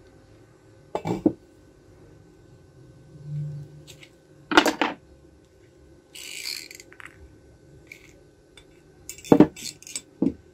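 A steel pipe and a metal welding electrode holder being handled and set down on a table: a few sharp metallic clinks and knocks, the loudest about halfway through, a short hiss a little later, and a quick run of clicks and knocks near the end.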